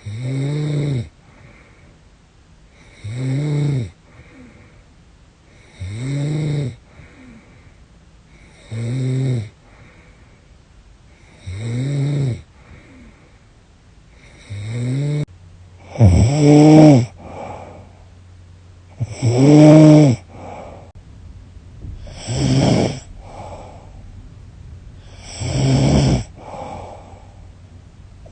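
A woman snoring loudly and rhythmically, about one rasping pitched snore on each in-breath every three seconds, two of them near the middle louder and longer than the rest. The snorer suspects it is a sign of sleep apnea.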